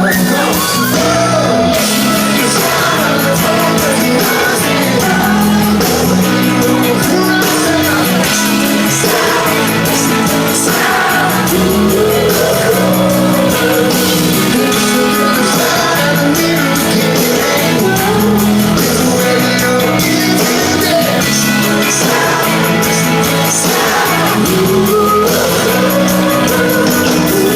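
Live rock band playing a song with a lead vocal sung over the full band.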